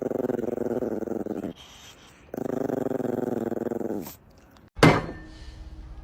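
A dog growling in two long, steady growls of about two seconds each, with a short pause between. A sudden loud noise near the end is followed by quieter sounds.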